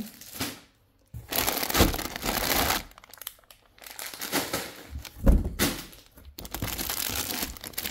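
Plastic food packaging crinkling and rustling in bursts as a hand rummages through groceries in a cardboard box, with a dull knock about five seconds in.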